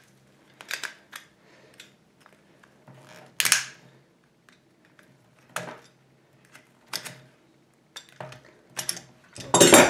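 Metal hand tools clicking and knocking as they are handled and swapped, in scattered single strikes with pauses between them, the sharpest about three and a half seconds in.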